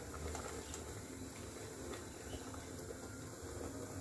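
Pot of spaghetti in boiling water, a low steady bubbling, with a few faint ticks of chopsticks stirring the noodles against the pot.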